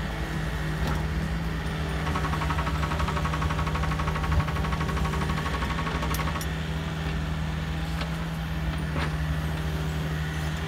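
Komatsu mini excavator's diesel engine running steadily while the bucket works soil and rock, with a few sharp knocks scattered through and a buzzing note for a few seconds near the middle.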